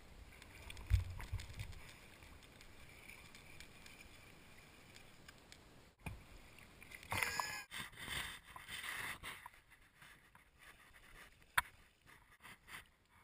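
Water splashing and lapping against an inflatable packraft as it is paddled, with a low knock about a second in and louder splashing in the second half.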